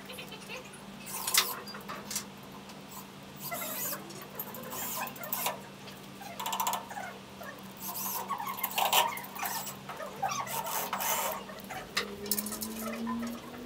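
Irregular clicks, scrapes and light metallic rattles as the steel wire ball-return track and screws are handled and fitted to a pool table's steel frame, with a wrench turning a bolt near the end. A faint steady hum runs underneath.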